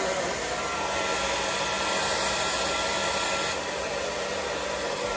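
Handheld hair dryer blowing steadily, drying lace spray on a wig's lace front. A faint whine in the rush of air drops out a little past halfway.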